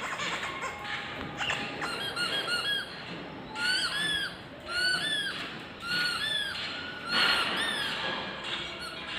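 Rubber squeaky toy squeaking over and over: short squeaks that each rise and then fall in pitch, coming in small groups about once a second.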